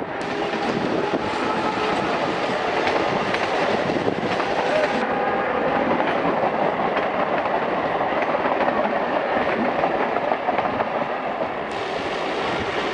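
Electric multiple-unit suburban train running past close by, a steady rolling noise of its coaches' wheels on the rails.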